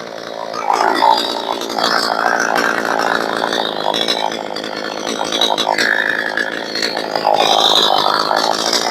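62cc chainsaw with a 20-inch bar cutting through a stringybark gum log, the engine held down under load in the cut. It eases briefly at the start, then settles into a steady cut.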